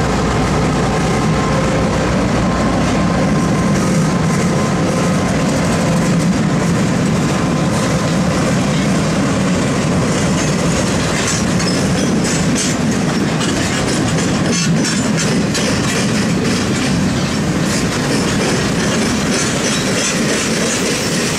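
Freight train cars rolling past, steel wheels clacking steadily over the rail joints, with a faint wheel squeal in the first several seconds; the clacking grows denser about ten seconds in.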